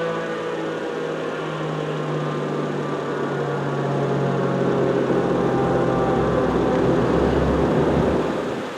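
ASC RM-135 outdoor warning siren winding down after its alert tone, its pitch falling and fading. A low rumble builds in the second half and cuts off suddenly near the end.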